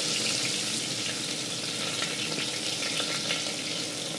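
Sliced onions sizzling in hot oil with whole spices in a pressure cooker, freshly added at the start of frying, steady with scattered small crackles.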